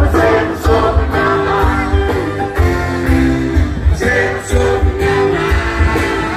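Live rock band playing over a concert PA: guitars and a steady, heavy drum beat.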